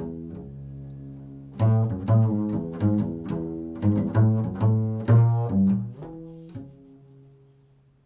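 Improvised instrumental music on a low-pitched string instrument: a held low note, then a run of about ten plucked notes, then fading away near the end.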